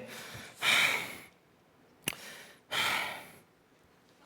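Two long breathy puffs of blowing or exhaling, about two seconds apart, with a short click between them.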